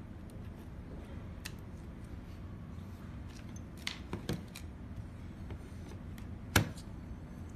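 Hands handling a car stereo head unit's circuit board and plastic housing: a few light clicks and taps, with one much louder sharp knock late on, over a low steady background hum.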